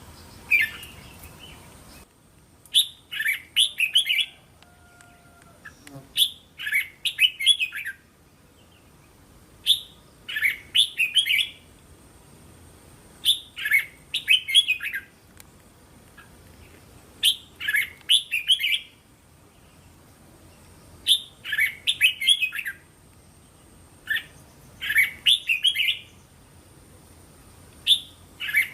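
Red-whiskered bulbul singing: short phrases of several quick, clear whistled notes, repeated every three to four seconds, about eight times.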